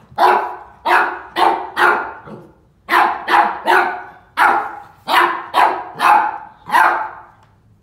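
Puppy barking at a plastic milk jug: about a dozen short, sharp barks in quick runs of two or three, each trailing off.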